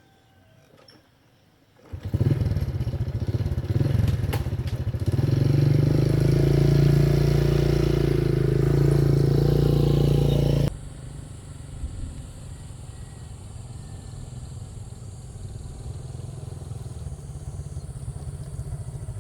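A motorbike engine starts up about two seconds in and runs steadily, getting louder a few seconds later; about two-thirds through it cuts off abruptly to a quieter, steady engine running.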